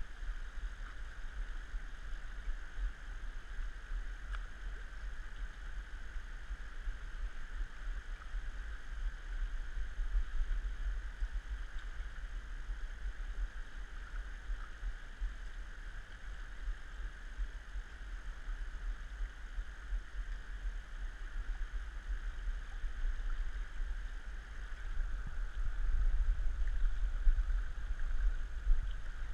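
Steady rush of flowing river water, under a low, fluttering rumble of wind on the microphone that grows louder a few seconds before the end.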